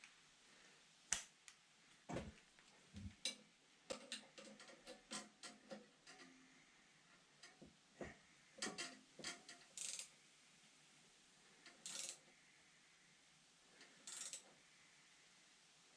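Scattered light clicks and taps of metal hand tools and small parts as the centre plug is refitted to a diesel injection pump, with a few short rasping bursts near the middle and end.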